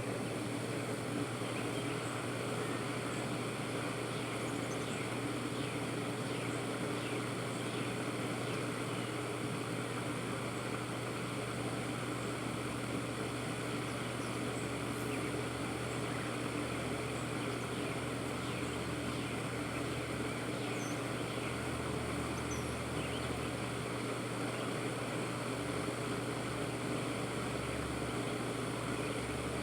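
Electric fan running, a steady whir with a constant low hum.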